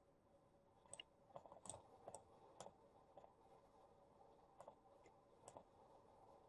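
Faint, scattered computer mouse clicks, a dozen or so short sharp ticks at irregular intervals, over near silence.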